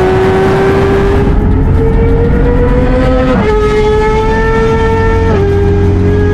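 An engine pulling hard at highway speed. Its pitch climbs steadily, then drops sharply at two quick upshifts, about halfway through and near the end, over a steady rush of wind and road noise.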